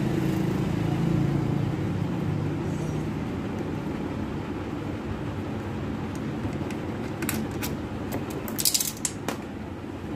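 A few sharp metallic clicks and clinks near the end, from hands and tools working the starter motor's bolts and cable loose on a motorcycle engine. These sit over a steady low background rumble.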